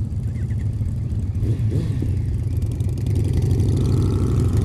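Motorcycle engine running on the road, picked up by a helmet-mounted camera mic together with wind rush; it gets louder about three seconds in.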